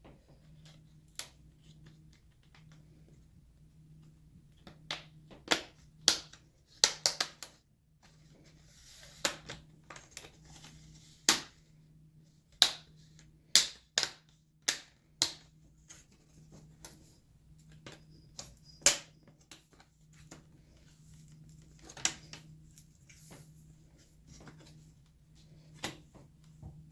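Plastic screen bezel of an HP laptop being pried off by hand, its clips snapping loose in sharp, irregularly spaced clicks, some in quick pairs and clusters. A faint steady low hum runs underneath.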